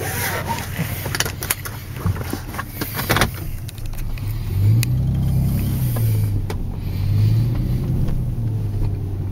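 Dodge Magnum's 3.5-litre V6 through a Blastin Bobs 10 dB exhaust kit, heard from inside the cabin, running at low revs with a few clicks and knocks over the first three seconds. About four and a half seconds in, the engine note swells as the car pulls away under light throttle, then settles into a low, uneven drone.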